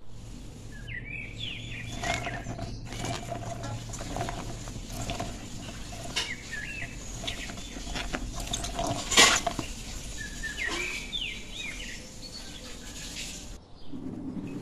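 Chopped vegetables tossed by hand in a stainless steel bowl, giving small clicks and rustles with one louder knock about nine seconds in. Small birds chirp in short bursts in the background, over a steady low hum that stops shortly before the end.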